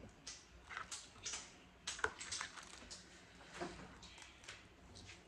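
Crab-leg and crawfish shells cracking and clicking as they are broken and handled: a string of faint, irregular snaps and clicks.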